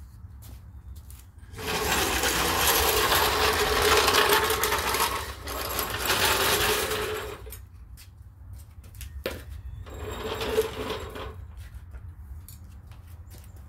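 Steel floor jack rolled across concrete on its casters: a loud, even rattling scrape for about six seconds with a brief break in the middle, then a shorter scrape near the end as it is pushed into position.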